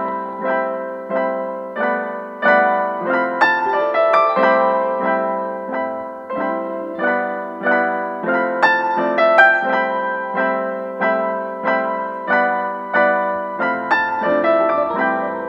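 Background music: a piano playing a melody in struck notes, about two a second, each note dying away before the next.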